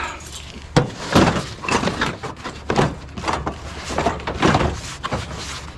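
Scrap being handled and broken apart: a run of irregular knocks, clanks and rattles, about a dozen strikes.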